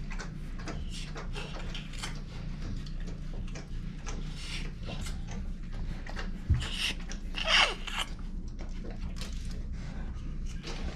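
Rustling and small clicks as a rubber bulb syringe is worked at a newborn puppy's mouth and nose to clear its airway. A dull bump comes about six and a half seconds in, and a short falling squeak about a second later.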